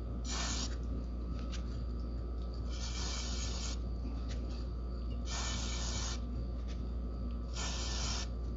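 Aerosol graphite dry lubricant sprayed in four short hissing bursts, about two seconds apart, onto the drive gears inside a lawn mower's rear wheel.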